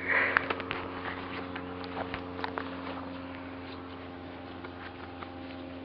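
Puppies playing in the grass: quiet scattered clicks and rustles over a steady low hum, with a short breathy noise at the start.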